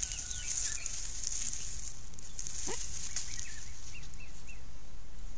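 Banded mongooses foraging, giving short high chirps and squeaks (contact calls) scattered through, over a steady high-pitched insect hiss. A short rising call comes about two and a half seconds in.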